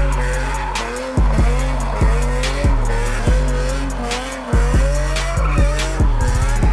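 Hip hop beat with a heavy bass line changing note about once a second, crisp hi-hat ticks and a repeating wavering melody.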